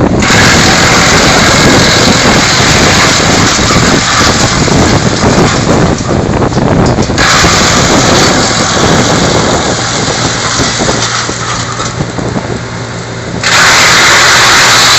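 BX-62 tractor-driven branch chipper running loudly, with a steady engine hum under dense high chipping noise. The noise changes abruptly about seven seconds in, fades somewhat, then comes back at full loudness a second or so before the end.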